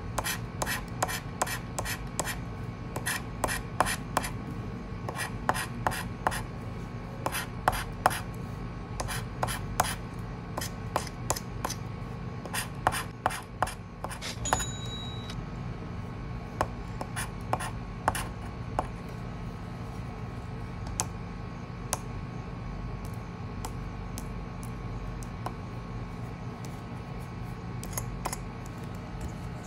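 Scratch-off lottery ticket being scratched with a small metal tool: quick, dry rasping scrapes across the coated card in rapid strokes, dense at first and sparser in the second half. A brief high-pitched tone sounds about halfway through.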